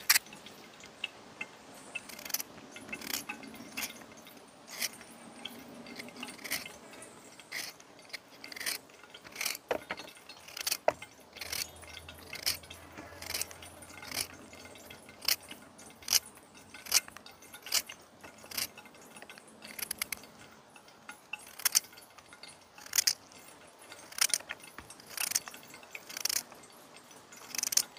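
Knife cutting up sweet pepper and other seasoning vegetables, a short sharp click at each cut, about one a second.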